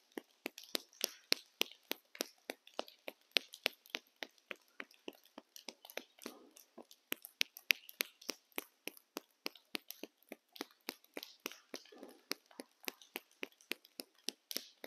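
Bare hands striking each other with fingers spread, the webs between the fingers clapping together in quick, even clicks about four to five a second, as a qigong hand-tapping self-massage.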